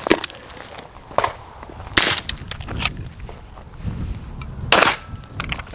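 Gunshots: a handful of sharp, irregular shots. The two loudest come about two seconds in and near the end, with fainter cracks between them.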